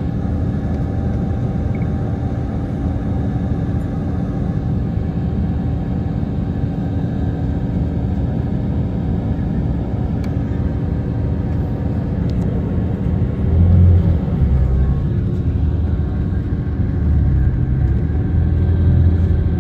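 A vehicle engine idles steadily, heard from inside the vehicle as a low rumble with a steady hum. The rumble swells briefly about two-thirds of the way through and again near the end.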